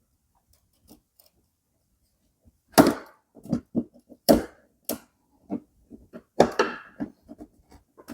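Sharp clicks, knocks and snaps of plastic and metal as a U-clip holding a car's number plate and cover is worked loose, starting a few seconds in and coming irregularly, several of them loud.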